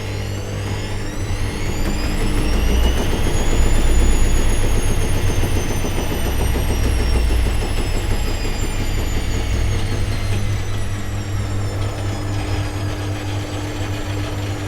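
Washing machine on its spin cycle: a steady low hum under a motor whine that climbs over the first four seconds and then slowly falls away, loudest as the whine peaks.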